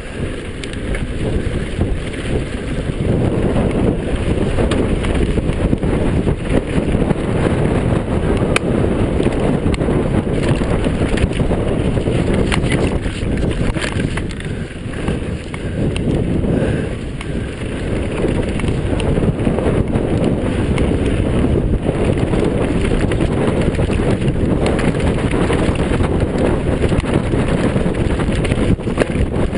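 Wind rushing over the microphone on a downhill mountain bike at speed, with the tyres rumbling over dirt and rocks and scattered knocks and rattles from the bike. The rush eases briefly about halfway through.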